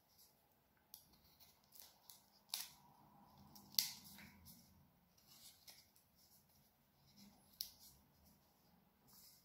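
Hand woodcarving gouges being handled and worked against a branch: faint scraping with a few sharp clicks, the loudest about four seconds in.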